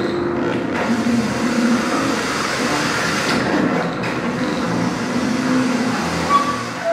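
Experimental electroacoustic music from turntables and analogue electronics: a dense, steady noise texture with low wavering tones underneath, cutting off at the very end.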